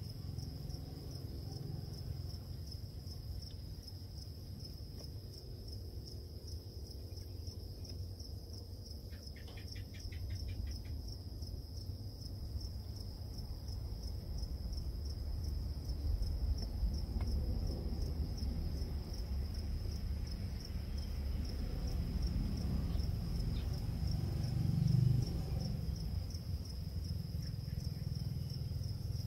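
An insect trilling steadily in a high, fast-pulsing, unbroken trill, over a low background rumble.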